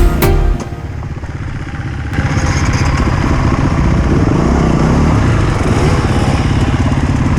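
Music cuts off about half a second in. From about two seconds in, a dirt bike's engine runs loud, its pitch rising and falling as the throttle is worked.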